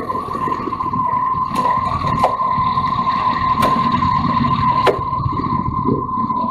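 Motorcycle engines idling while stopped in traffic, with a steady high-pitched whine running through. Four sharp clicks sound during the first five seconds.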